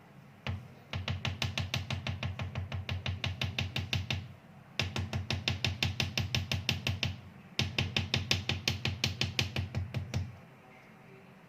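Music with a fast, even percussive beat of about six strikes a second, playing in three runs that break off briefly and start again.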